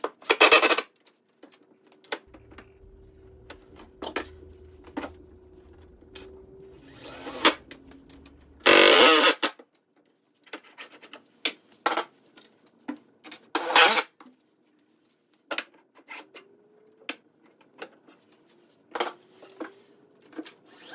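Workshop handling sounds: scattered knocks, clicks and short scraping rubs as a miter saw is pushed into line against a straight edge and fastened down to its bench, with a few louder scrapes lasting about half a second each.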